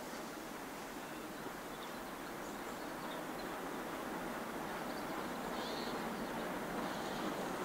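Distant LNER K4 steam locomotive working a goods train up the gradient, heard as a steady rumble that grows gradually louder as it approaches, with a few faint bird calls.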